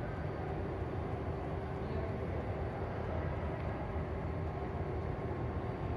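Steady low rumble of railway station hall ambience, with a faint constant hum and no distinct events.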